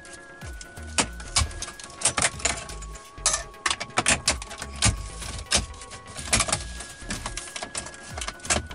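Plastic trim bezel around a Dodge Durango's dash screen being pried loose by hand, giving an irregular scatter of clicks and snaps as its retaining clips let go. Faint background music with held notes underneath.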